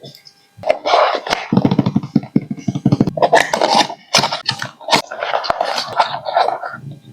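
Handling noises as the tablet's box and accessories are unpacked: irregular rustling and scraping with several sharp clicks and knocks.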